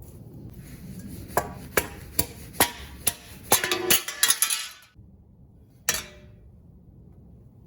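Sharp metal clanks and clinks, about eight in quick succession with a brief ringing tone, then a short rattle and one last ringing clank: the thin sheet-metal rotor dust shield being worked off the front steering knuckle.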